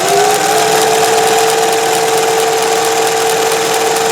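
Singer 411G sewing machine, driven through a custom motor reducer, running at high speed and sewing: a steady mechanical whine holding an even pitch over the hum and clatter of the mechanism.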